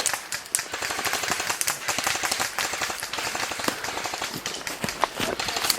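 Airsoft guns firing in rapid automatic bursts: a fast, continuous stream of sharp clacking shots.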